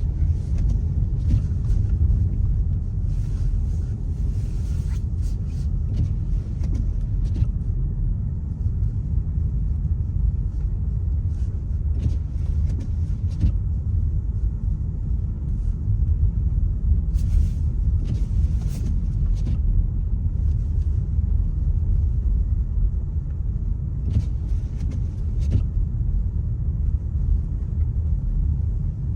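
Car driving on a snowy road, heard from inside the cabin: a steady low rumble of engine and road noise, with brief hissing swells now and then.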